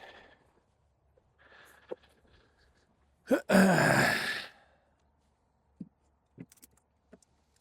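A man sighs heavily about three seconds in: a long breathy exhale with his voice falling in pitch. A few faint clicks follow.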